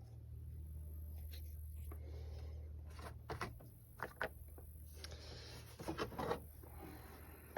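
Faint clicks and scrapes of a funnel being handled and set into the engine's oil filler opening, over a low steady hum.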